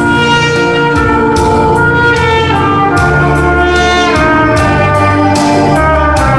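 Trumpet playing a slow melody of held notes that step from pitch to pitch about once a second, over a backing track with a bass line.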